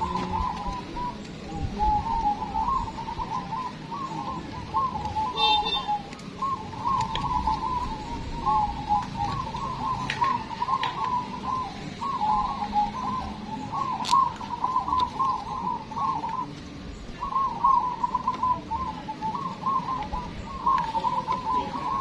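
Many caged zebra doves (perkutut) cooing at once, their rolling, trilled coos overlapping into an unbroken chorus, with a short lull about sixteen seconds in.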